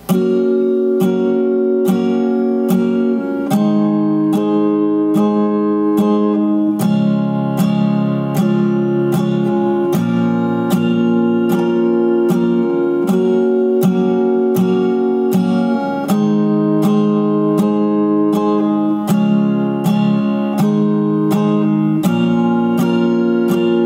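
Acoustic guitar, capoed at the sixth fret, strummed in steady quarter notes, about two even strums a second, as the chords change every couple of seconds.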